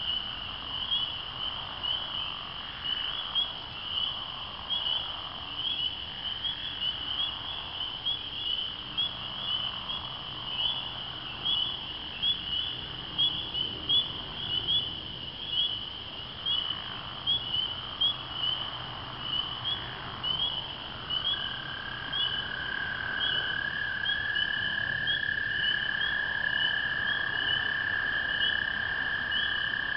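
Night chorus of spring peepers, many short high peeps overlapping several times a second. About two-thirds of the way through, an American toad starts a long, steady trill that is still going at the end.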